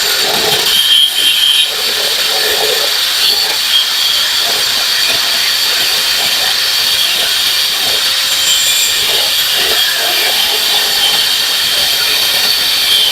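Corded angle grinder with a thin cut-off disc cutting through metal: a steady, loud, high-pitched hiss and screech.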